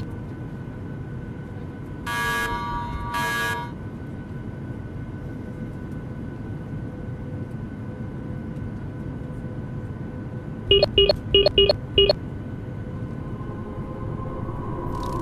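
Sci-fi computer-interface sound effects over a low, steady electronic drone: two longer buzzy tones about two and three seconds in, then a quick run of six short beeps, like keypad presses entering a password, about eleven seconds in.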